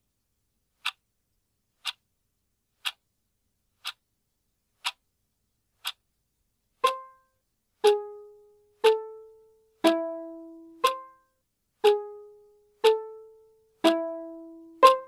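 A clock ticking once a second opens a music track. About seven seconds in, a plucked-string note joins on every tick, one note a second at changing pitches, each ringing out before the next.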